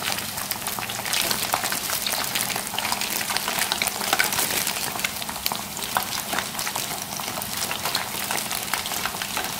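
Breadcrumb-coated chicken pieces deep-frying in oil in a pan on low heat: a steady, dense crackle and sizzle of bubbling oil.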